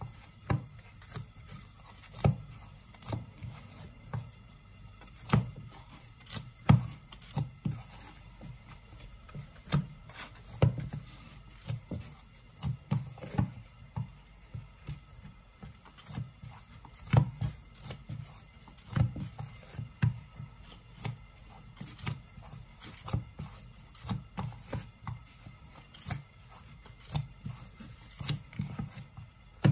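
Wheat dough for roti being kneaded by hand in a bowl: irregular dull thumps as the dough is pressed, folded and pushed down against the bowl, about one or two a second.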